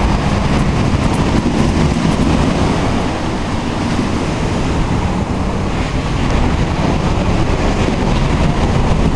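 Surf breaking on a pebble and boulder beach, a loud steady wash of noise with a heavy low rumble, much of it wind buffeting the microphone.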